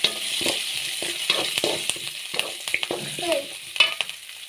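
Chopped onion, green chillies and curry leaves sizzling in hot oil in a kadai while a spatula stirs them, scraping and knocking against the pan in quick irregular strokes.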